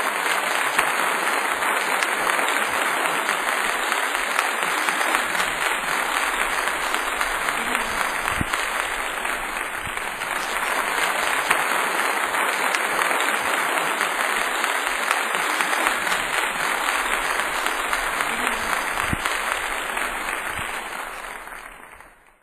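Audience applauding steadily, a dense crackle of many hands clapping, fading out near the end.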